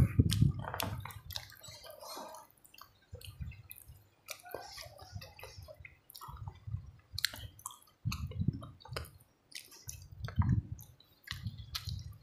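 A person eating fish curry with his fingers: chewing with wet mouth clicks and squelches as the fish is picked off its bones. The sounds come in short, irregular bouts with brief pauses between.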